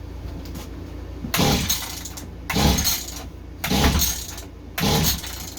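Mantis mini tiller's small engine cranked by four quick pulls of the recoil starter cord, each a short rasping turn-over about a second apart. The engine does not fire on any of them.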